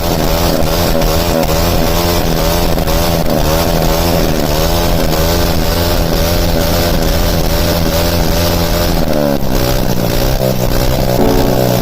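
Hero Honda Passion motorcycle's single-cylinder engine running loud through a cut, modified silencer, its note wavering with the throttle. The pitch falls about nine seconds in, then the engine settles lower.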